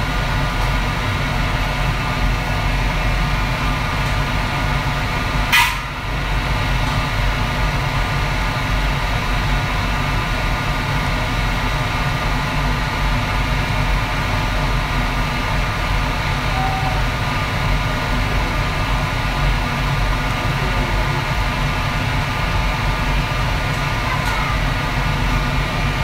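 Steady low drone of commercial kitchen equipment at a wok station, with constant humming tones over it. One sharp knock comes about six seconds in.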